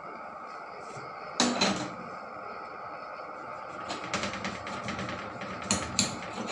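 Kitchen items being handled: a sharp knock about a second and a half in, then a run of small clicks and rattles near the end.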